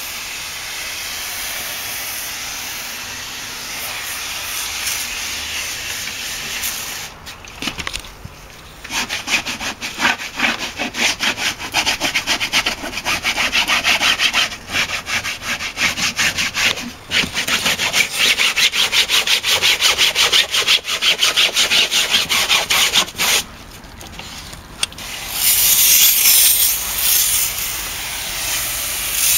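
Hand-pump pressure sprayer hissing cleaning solution onto bus seat upholstery, then a hand scrubber rubbing the fabric in rapid back-and-forth strokes for about fifteen seconds. Near the end comes another loud spray hiss.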